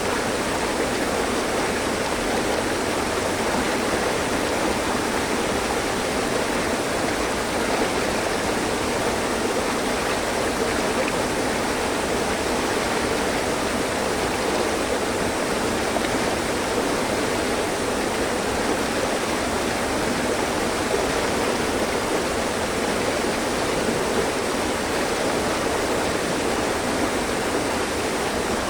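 Mountain stream flowing over rocks, a steady rushing and babbling with no pauses or changes.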